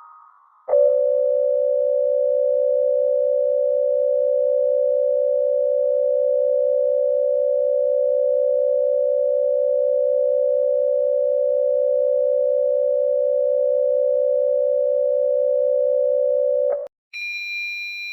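Emergency Alert System attention signal: a steady two-tone alert, sounding without a break for about sixteen seconds. It starts about a second in and cuts off suddenly near the end, and a higher single steady tone comes in right after.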